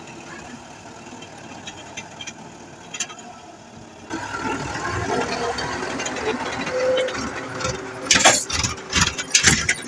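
A vehicle engine running, becoming much louder about four seconds in, with several loud sharp knocks near the end.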